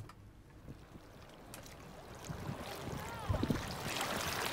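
Small waves washing and lapping against a mussel-covered rocky shore, with wind buffeting the microphone. It grows louder in the second half, and a brief faint chirp comes about three seconds in.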